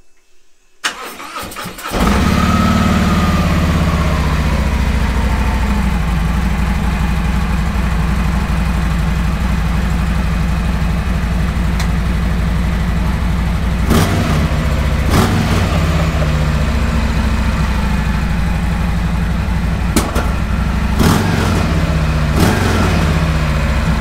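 Harley-Davidson Road Glide's Milwaukee-Eight V-twin cranking and catching about two seconds in, then idling steadily, with a few sharp clicks over the idle later on. It starts on a newly fitted battery after the old one failed with a dead cell.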